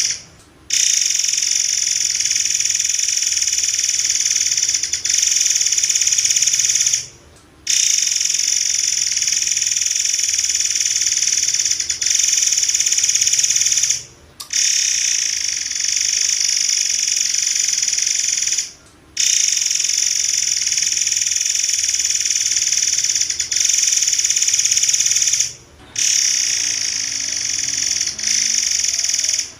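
Murai air, a forktail, calling in dense, rapid-fire shrill high-pitched bursts, the "tembakan rapat" style used as a training recording for other birds. The calling runs in long stretches of several seconds, broken by four brief pauses.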